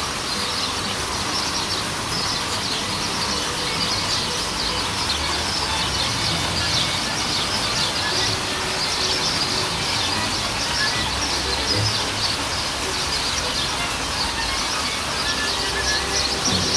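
Outdoor chorus of many short, high chirps from birds and insects in the garden trees, going on steadily throughout, over a low rumble on the microphone.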